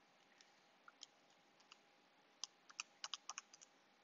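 Faint scattered small clicks and taps over quiet room hum: a couple in the first second or two, then a quick run of about eight between two and four seconds in.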